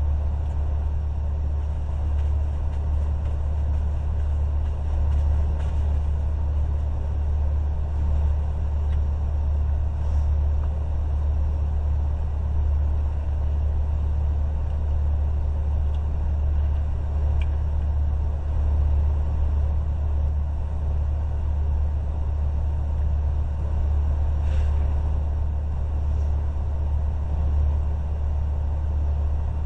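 Steady low rumble of an idling truck engine, unchanging throughout.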